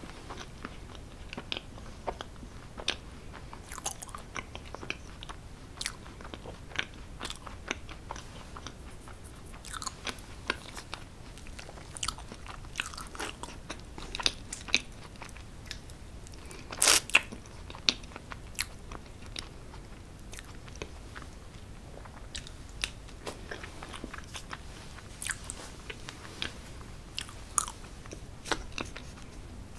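Close-miked eating sounds of chocolate cake being chewed, with many small, irregular sharp mouth clicks and taps. The loudest is a quick double click a little past halfway.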